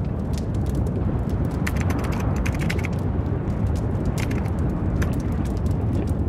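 Erupting volcano: a steady deep rumble from the lava field, with a few sharp crackles about two seconds in and again around four to five seconds in.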